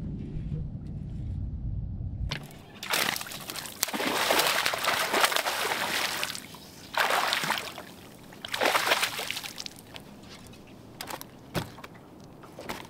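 A hooked bass thrashing and splashing at the water's surface beside a boat in several loud bursts, after a low rumble in the first two seconds. Near the end come a few sharp thuds as the fish flops on the boat's carpeted deck.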